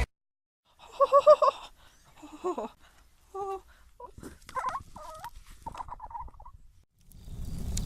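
A series of short warbling calls like a turkey's gobble, the loudest about a second in, followed by several fainter calls.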